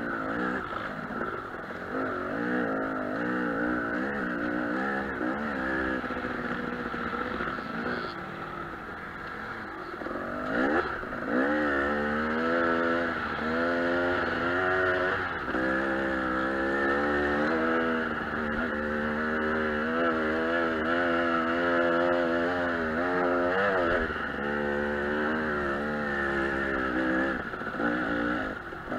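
KTM 300 two-stroke dirt bike engine running under constant throttle changes while riding a dirt trail, its pitch rising and falling over and over, with a sharp rev about ten seconds in.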